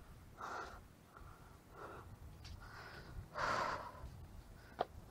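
A man breathing hard close to the microphone, out of breath: a few heavy breaths, the loudest about three and a half seconds in.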